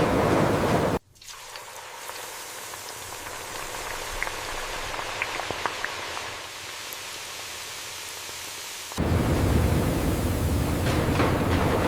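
Steady rain-like hiss that drops abruptly to a quieter hiss with a few faint ticks about a second in, then returns at full strength near the end.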